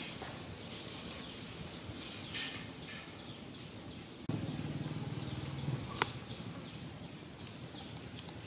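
Outdoor background noise with two short, high rising bird chirps, a low hum for about a second and a half near the middle, and one sharp click about six seconds in.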